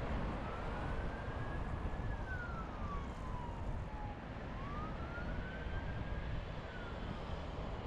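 An emergency-vehicle siren wailing, its pitch rising and falling slowly about every four seconds, over a steady low rumble of city traffic.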